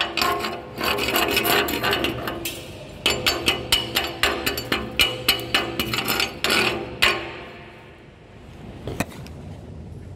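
Chipping hammer tapping on a freshly stick-welded steel pipe joint, knocking off slag, at about three sharp ringing strikes a second. The strikes pause briefly, stop about seven seconds in, and one last strike follows near the end.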